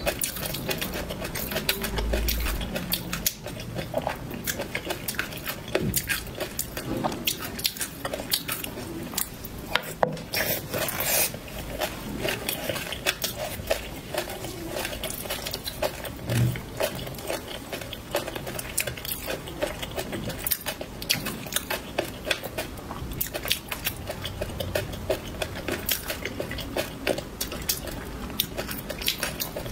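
Close-miked chewing and crunching of peanuts in chili sauce and Laba garlic, a quick run of sharp crunchy clicks with wet mouth sounds, and now and then a spoon against the plate.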